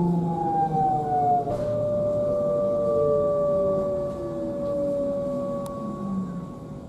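DB Class 425 electric multiple unit's traction converters whining, heard from inside the passenger compartment: several tones slowly falling in pitch as the train slows into the station, with a steadier tone taking over about a second and a half in. The sound fades out near the end.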